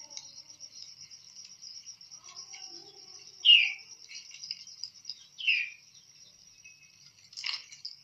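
Plum-headed parakeet giving two short, loud chirps that fall in pitch, about two seconds apart, with a sharper short sound near the end. Under them runs a steady high trill of crickets.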